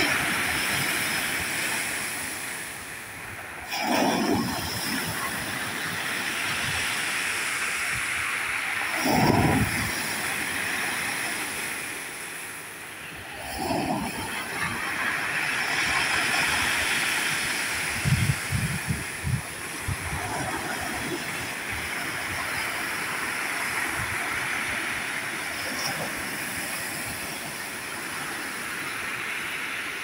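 Sea waves breaking on a pebble beach: a steady hiss of surf and foam washing over the stones, with heavier crashes about 4, 9 and 13 seconds in and a brief run of clattering around 18 seconds.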